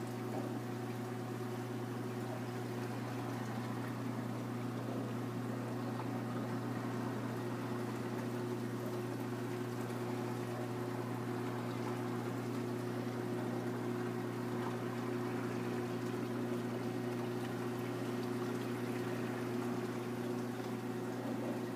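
Reef aquarium's pumps and water circulation running: a steady low hum with an even wash of moving, trickling water.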